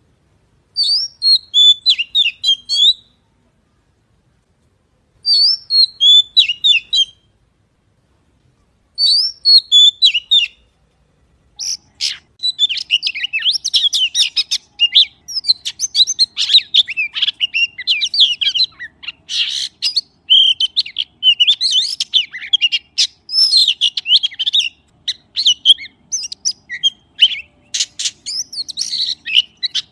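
Magpie singing: three short phrases of quick, varied whistled and chattering notes, each about two seconds long with pauses between, then almost unbroken song from about twelve seconds in.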